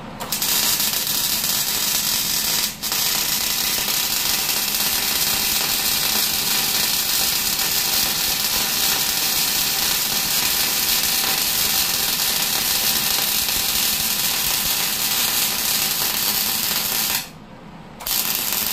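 Electric arc welder laying a bead on a steel backhoe bucket tooth: a steady crackling, sizzling hiss. It breaks off for an instant about three seconds in and stops about seventeen seconds in, then comes a short restart just before the end.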